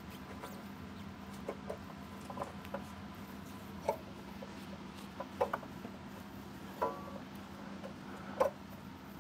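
Scattered light clicks, knocks and short squeaks, about a dozen, from parts and tools being handled while refitting a motorcycle's rear wheel and drive belt, over a steady low hum.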